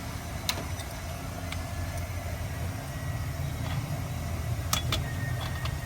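Car engine running at a steady idle, a low even rumble, with a few sharp clicks or taps over it.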